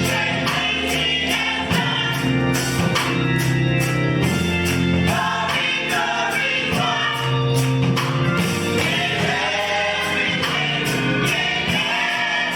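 Gospel choir singing with band accompaniment over a steady beat of about three strokes a second.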